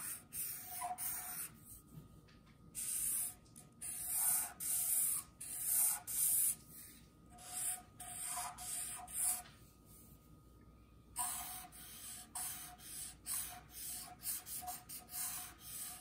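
Black felt-tip permanent marker drawn across paper in a series of short strokes with pauses between them, a dry scratching hiss. Some strokes carry a faint squeak.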